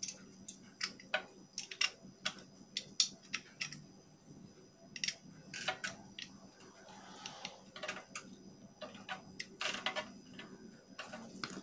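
Irregular light clicks and taps of metal parts being handled and fitted by hand on a diaphragm suction pump's head, with a few brief scraping rustles.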